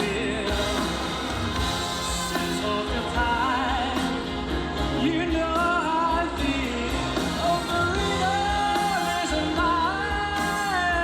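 Pop music: a singer's voice over band accompaniment, with vibrato on the long held notes.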